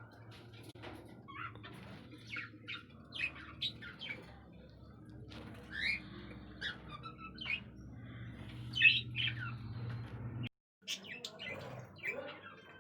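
Pet budgerigars chirping and chattering: a steady run of short, quick chirps, loudest about nine seconds in.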